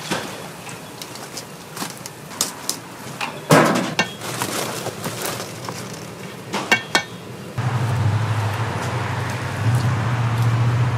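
Utensils clattering at a doughnut fryer, over the sizzle of frying oil: a sharp metal knock a few seconds in, then smaller clinks. Near the end a steady low hum comes in.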